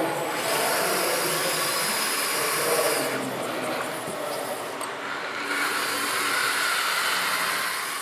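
Scale RC Linde forklift's hydraulic pump whirring with a hissing rush in two stretches, one starting just after the beginning and one in the second half, as the forks work a lumber pallet.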